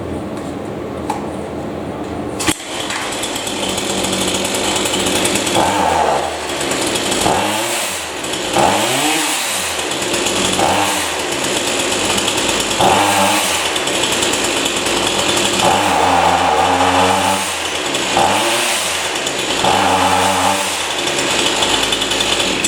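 Partner two-stroke chainsaw engine running, then blipped up and down repeatedly, its pitch rising and falling with each throttle stab, and cutting off at the end. It bogs down and responds poorly at high speed, which the owner puts down to the carburettor's high-speed mixture setting.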